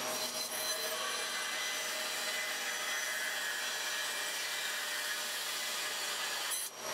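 Bandsaw running and cutting a curve through a walnut board with a lighter hardwood board glued on top: a steady whir of motor and blade in the wood, with faint hum tones, dropping out briefly near the end.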